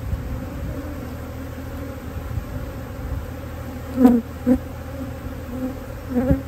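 Honey bees buzzing in a steady hum around an opened hive, with a few brief louder bursts and knocks about four seconds in and again near the end.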